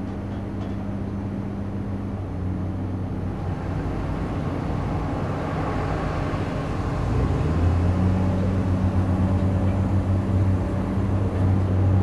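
Engine of heavy demolition machinery running steadily. Its note shifts about two seconds in, then rises and gets louder about seven seconds in.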